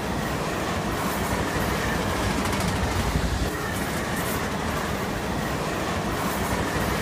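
Amtrak Cascades Talgo passenger cars rolling past: a steady rumble of wheels on rail with occasional faint clicks.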